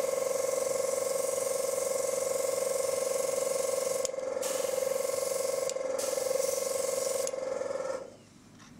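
A small airbrush compressor runs with a steady hum while air hisses through the airbrush. The hiss cuts out briefly twice, about four and six seconds in, and everything stops near the end.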